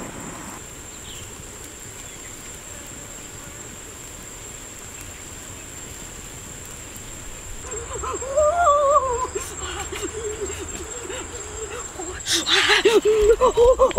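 A steady high-pitched insect drone over faint ambient noise. About halfway through, a wavering, sliding voice-like call joins in, breaks off, and returns louder near the end, with a brief rustle.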